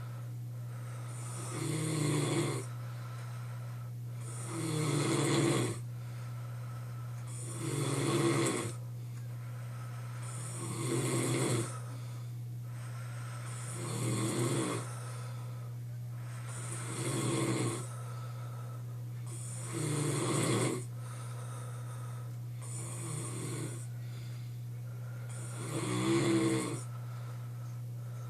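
A sleeping man snoring loudly, one snore about every three seconds, nine in all, over a steady low hum.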